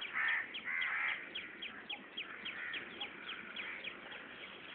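Birds calling: a steady series of short high chirps, about four a second, with a few louder, harsher calls in the first second or so.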